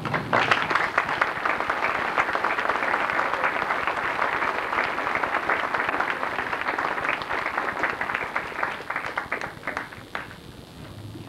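Audience applauding: dense clapping that thins to scattered claps and dies away about ten seconds in.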